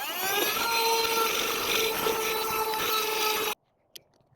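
Small rotary power tool cutting into the underside of a MoonSwatch's Bioceramic case to open a service hole. Its whine rises for about half a second as it spins up, then holds steady over a grinding rasp, and stops abruptly after about three and a half seconds.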